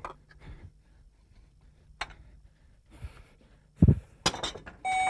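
Scattered light clinks and knocks of dishes and household objects being gathered up and set down, with one heavy thump just before the four-second mark. Near the end an electric doorbell's chime begins, one steady ringing note.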